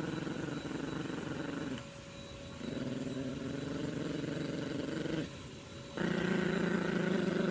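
Yorkshire terrier puppy play-growling with a plush toy clamped in its mouth, in a tug-of-war game: three long growls with short pauses between them, the last, starting about six seconds in, the loudest.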